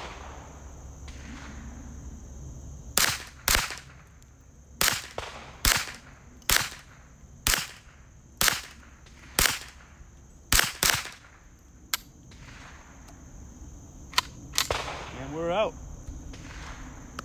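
Ruger 10/22 semi-automatic .22 LR rifle firing about ten single shots at an uneven pace over some eight seconds, starting about three seconds in, the last two close together.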